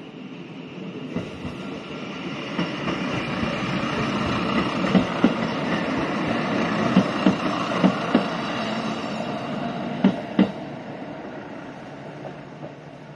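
Shimabara Railway Cafe Train, a two-car diesel railcar, passing close by: its running rumble swells and fades, with about four pairs of sharp wheel clacks over rail joints near the middle of the pass.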